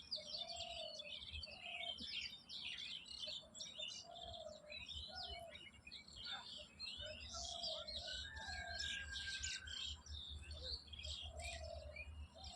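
Many small birds chirping in a dense, continuous chorus, with a shorter, lower call repeating about once a second. A low rumble joins from about seven seconds in.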